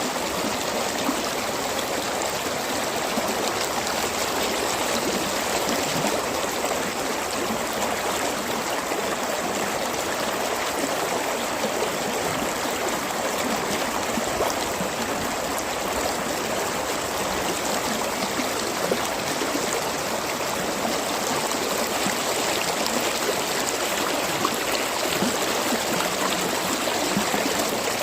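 Stream water gurgling and flowing steadily, a continuous even rush with small splashy ticks.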